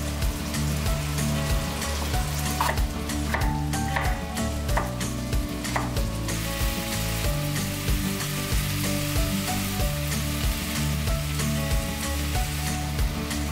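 A chef's knife cutting a roasted red pepper on a wooden board: a few sharp cuts in the first half. Under it runs background music with low, steady notes, and from about halfway through a sizzling hiss fills the upper range.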